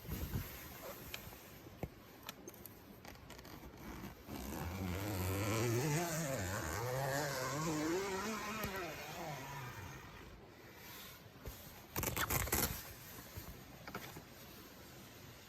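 A motor vehicle's engine passing by, its pitch rising and falling for about six seconds, followed by a brief cluster of knocks about twelve seconds in.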